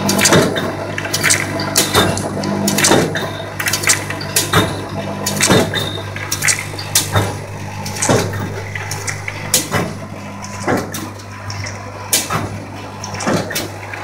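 Flat-plate blister packing machine running through its intermittent cycle: a steady low hum under repeated sharp clacks and short bursts of hiss from its reciprocating forming, sealing, indexing and punching strokes, coming irregularly a bit more than once a second.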